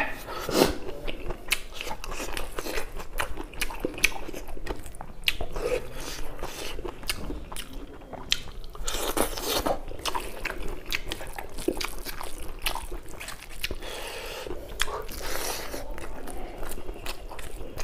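Close-miked eating: chewing and crunching raw cucumber and green chilli with mouthfuls of rice and meat, many short wet clicks and crunches coming irregularly.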